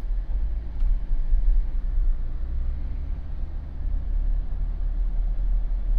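Jeep driving slowly on a residential street: a steady low rumble of engine and tyre noise.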